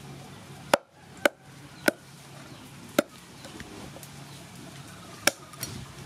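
Blade chopping chicken feet on a thick wooden chopping board, cutting off the claw tips: six sharp chops at uneven intervals.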